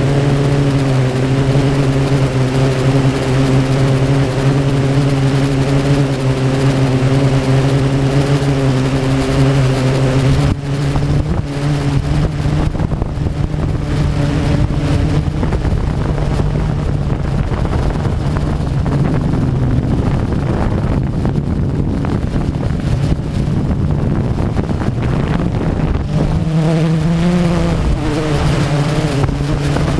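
Drone's electric motors and propellers humming at a steady pitch, heard from on board over wind rushing across the microphone. The hum fades about ten seconds in and comes back near the end, wavering up and down in pitch as the motor speed changes.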